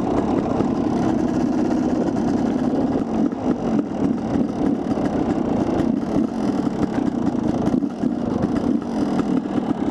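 Dirt bike engine running steadily at low speed, heard close up from the bike the camera rides on, with the lead rider's bike just ahead.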